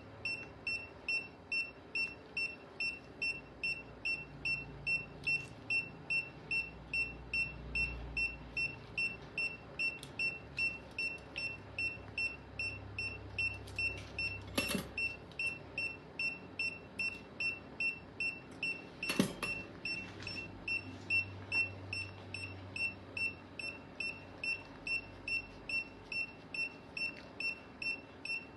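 Veterinary anaesthesia monitor beeping steadily, a little under twice a second, in time with the anaesthetised cat's pulse. Two sharp metallic clicks sound midway, over a low hum.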